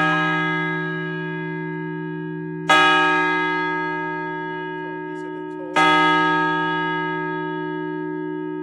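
Church bell tolling, struck about every three seconds: twice here, over the ring of a stroke just before. Each stroke starts sharply and rings on, fading slowly, while a low hum tone carries through.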